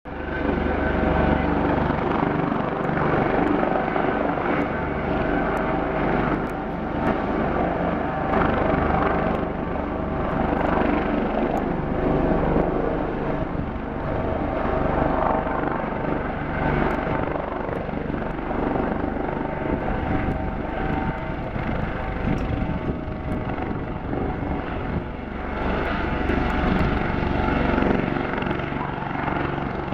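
Dauphin-type helicopter with a shrouded fenestron tail rotor hovering low, its rotors and turbine engines running steadily.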